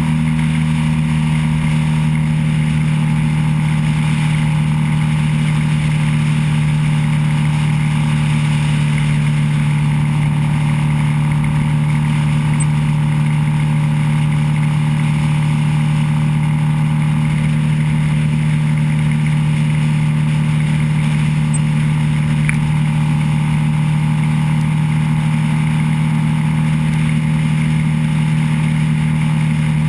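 Motorcycle engine running steadily at cruising speed, heard from the bike the camera rides on, with wind and road noise. The pitch holds constant with no shifts or revving.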